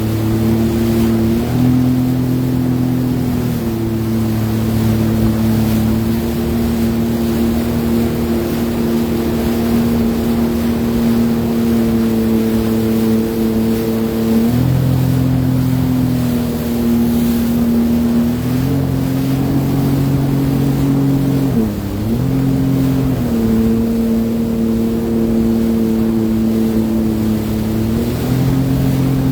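Sea-Doo Fish Pro personal watercraft engine running, its pitch stepping up and down several times as the engine speed changes, with a brief dip about three-quarters of the way through.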